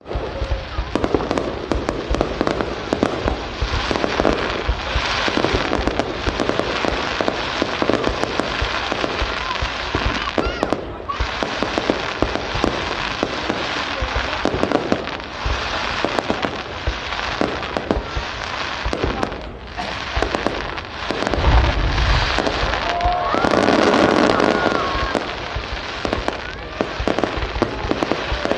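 Aerial fireworks display: a continuous barrage of bangs and crackling shell bursts, with a deeper boom about three-quarters of the way through followed by a louder, denser stretch.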